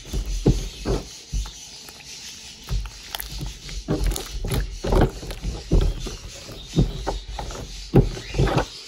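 Hard slime with lotion worked into it, kneaded and pressed against a tabletop by hand: irregular squishes and squelches, about two a second.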